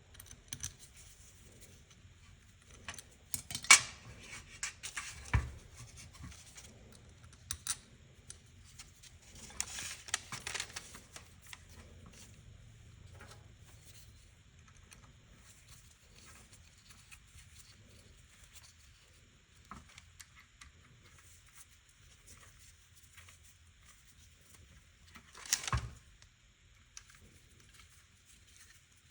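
Small parts and hand tools handled on a workbench during carburetor work: scattered clicks, taps and light scraping, with a sharp knock about four seconds in and a heavier knock near the end.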